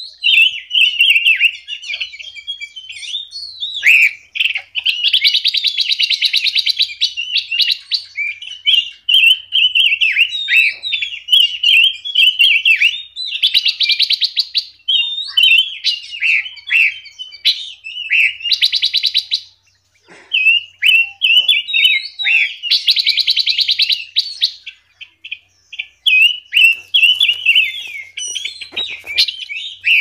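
Caged songbirds in an aviary singing without pause: runs of varied, quick twittering notes, broken every few seconds by a fast, buzzy trill that lasts a second or two.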